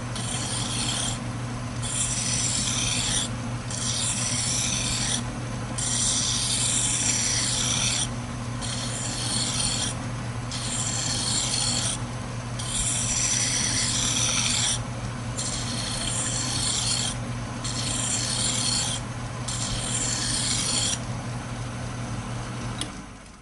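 A hand file scraping against a workpiece turning in a lathe, in about ten long strokes of a second or two each, over the steady hum of the lathe running. The hum stops near the end.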